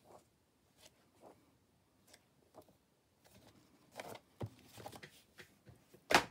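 Paper pages of a softcover film annual being turned by hand, a soft rustle every half second or so, growing into louder handling about four seconds in. Near the end a sharp knock, the loudest sound, as the book is set down on the table.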